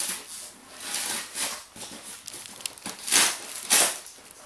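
Cardboard box being torn open by hand, the flaps ripping and crinkling in several short bursts, the loudest two about three and four seconds in.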